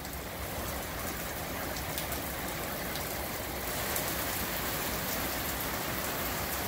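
Heavy rain falling steadily on the driveway and the parked cars.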